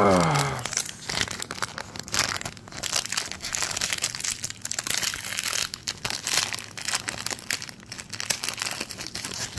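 Plastic booster-pack wrappers crinkling and tearing as trading-card packs are opened by hand, a dense run of irregular crackles.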